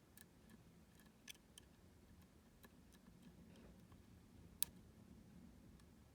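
Faint, scattered clicks of a lock pick working the pins of a U-Shin Showa NX lock, with one sharper click about four and a half seconds in.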